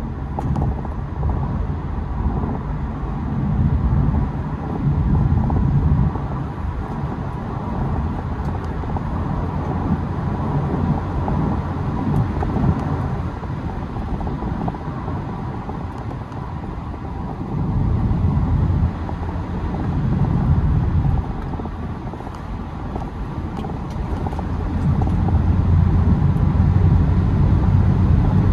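BMW E92 320d's N47 four-cylinder turbodiesel with an open air intake, running under changing throttle. The sound swells and eases several times and is loudest near the end.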